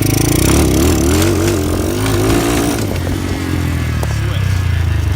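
A 125cc pit bike engine is run on the throttle in second gear. Its pitch wavers up and down for about the first three seconds, then settles. This is the sound of a failed second gear that the owner says is completely gone.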